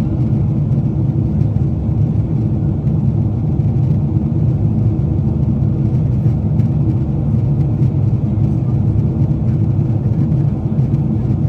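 Boeing 747-8i passenger cabin in flight: a steady low drone of engine and airflow noise that holds even throughout.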